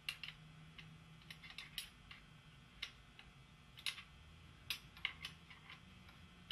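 Short metal clicks and ticks of a tool working the rear clamp screw of a bicycle seat post as it is tightened down, a dozen or so at irregular intervals.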